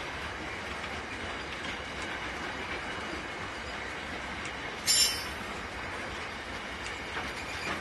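Grain hopper wagons of a freight train rolling slowly along the track, a steady rolling noise with a few faint clicks, and one brief high screech about five seconds in.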